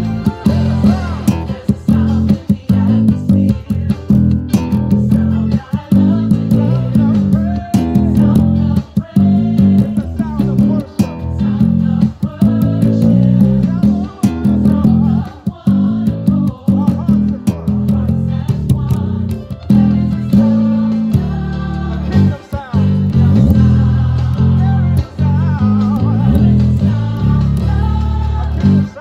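Electric bass guitar played fingerstyle, a busy gospel bass line of quick changing notes, over a gospel choir song with choir singing and drums.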